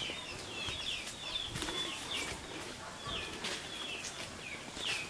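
Small birds chirping over and over, short falling chirps several times a second, over a faint outdoor background.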